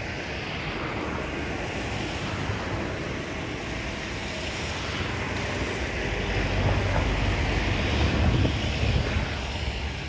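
Wind buffeting the microphone at the waterside, with the river's water in the background. A low rumble swells from about six seconds in and eases off near the end.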